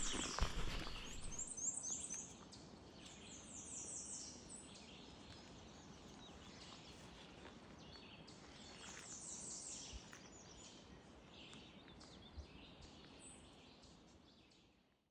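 A songbird singing: repeated quick runs of high, downward-slurred notes, over faint outdoor ambience. In the first two seconds, louder footsteps and rustling in leaf litter. The sound fades out near the end.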